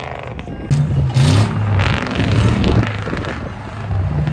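Off-road truck engine revving under load as the truck climbs over a row of tyres. It gets louder about a second in, and its pitch rises and falls as the throttle is worked.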